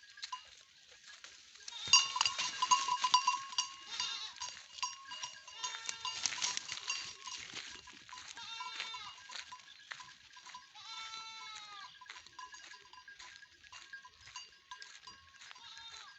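Local goats bleating with a few curved, falling calls, over a busy rustling and crackling of undergrowth that is loudest in the first half.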